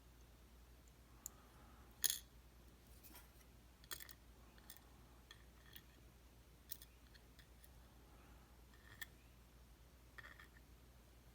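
Faint, scattered small clicks of metal tools against the tiny pins and springs of a dimple lock being taken apart, the sharpest about two seconds in.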